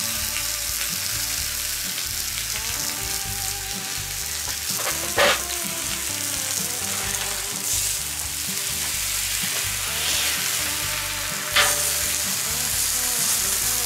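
Thin slices of beef sizzling steadily on a hot steel fire plate (plancha ring) over an open fire, with two short metallic clacks of tongs against the plate about five seconds in and near the end.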